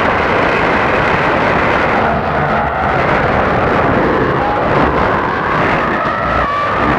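Shortwave radio receiver tuned to 4640 kHz, putting out a loud, dense rush of static and noise. In the second half, brief whistling tones come and go, one of them stepping up in pitch near the end.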